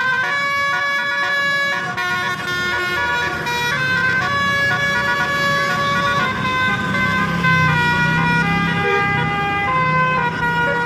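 A bus's telolet horn, a multi-tone air horn, playing a melody of held notes that step from one pitch to the next, over the low running of the bus engine.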